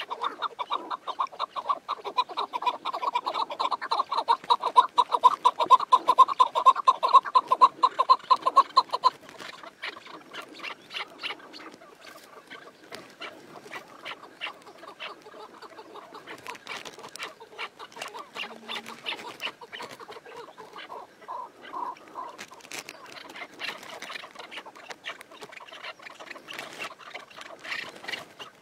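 Chukar partridge calling: a loud, rapid run of repeated clucking notes for about nine seconds that stops abruptly, followed by quieter, scattered clucks and clicks.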